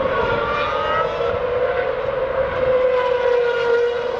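Formula One car engines screaming at high revs as the cars run through the turn: a loud, sustained whine whose pitch slowly falls, with a second engine note rising briefly about a second in.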